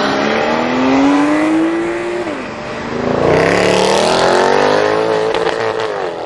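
Cars accelerating hard, engine notes climbing in pitch. A first run-up lasts about two seconds and falls away. A black Mercedes C63 AMG's V8 then pulls away at full throttle, its note rising steadily before it cuts off near the end.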